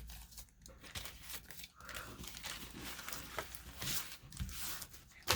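Faint, irregular rustling and crinkling of paper and plastic packaging being handled, with a few light clicks.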